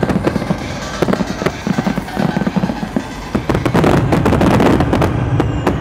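Aerial fireworks going off in a rapid barrage: many sharp bangs and crackles in quick succession, thickest about four to five seconds in, then easing off near the end.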